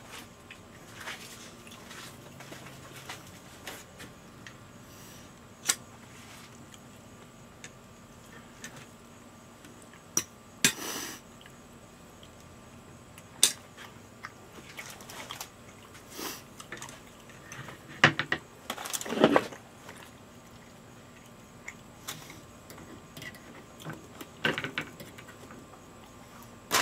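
Scattered clicks, knocks and scrapes of serving utensils handling meat on a metal wire rack, with a louder cluster of knocks about two-thirds of the way through.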